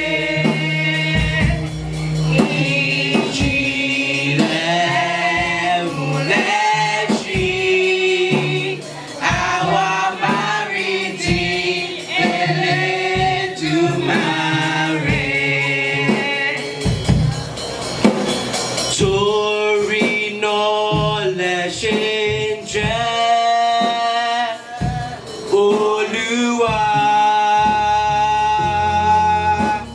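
Church choir singing a Yoruba gospel hymn, with percussion knocking through it.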